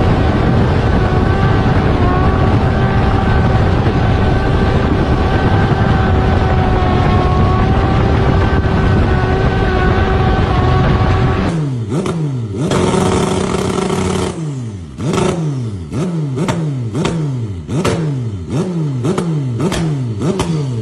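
Motorcycle engine holding a steady high note with wind rush at highway speed. About eleven seconds in this gives way to a motorcycle on a paddock stand being revved in quick repeated throttle blips, its pitch dropping after each, a little more than one a second.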